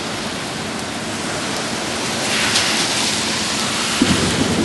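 Steady rain hissing on a wet street. The hiss swells briefly about halfway through, and a low rumble joins it near the end.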